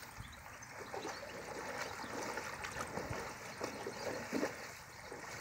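Water buffalo stirring in a shallow muddy pond: water sloshing and trickling, with a few louder splashes about four seconds in as one heaves itself up.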